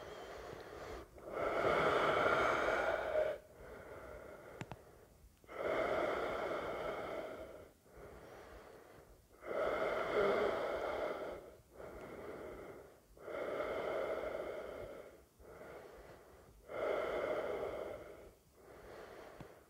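A man's slow, deep, audible yogic breathing while he holds a back-strengthening pose: about five long breath cycles, each a louder rush of breath of roughly two seconds alternating with a softer one.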